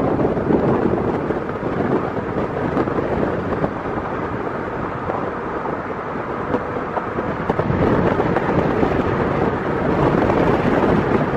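Steady wind and road noise of a car driving at speed, a constant low rush with no engine note standing out.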